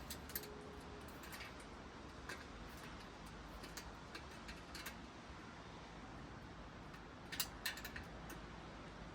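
Faint, scattered light clicks and taps of small metal bike parts and hand tools being handled during assembly, with a short cluster of louder clicks near the end.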